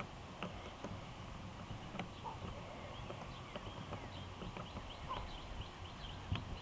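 Faint scattered clicks and light knocks from small carburetor parts and a screwdriver being handled during reassembly.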